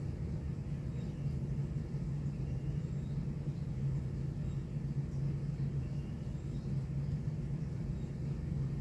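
Steady low hum with a rumble underneath.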